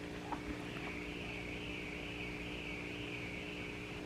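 Quiet room tone: a steady electrical hum, with a faint wavering high-pitched whine that comes in about a second in.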